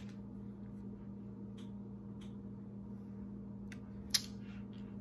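Quiet room with a steady low hum and a few faint small clicks or taps, one sharper click about four seconds in.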